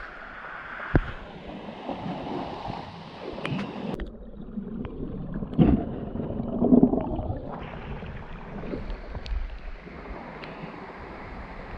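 Waterfall water rushing and gurgling, with scattered knocks and a muffled stretch in the middle of the clip.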